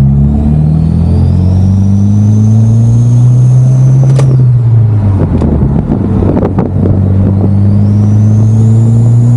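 Mitsubishi Lancer Evolution X's turbocharged 2.0-litre four-cylinder pulling hard under acceleration through a short ram intake: the engine note rises with a high turbo whistle rising alongside it and a breathy intake sound like air going through a straw. About four seconds in the pull ends with a sharp click and a few seconds of crackle at the gear change, then a second pull climbs again and drops off at the end.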